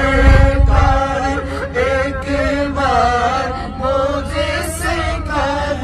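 Men's voices singing a naat in a chant-like, choir-style passage, the melody winding over a steady low humming drone.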